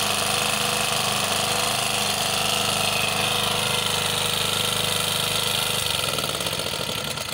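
Small petrol generator engine running steadily, then slowing and dying away near the end as it is shut off.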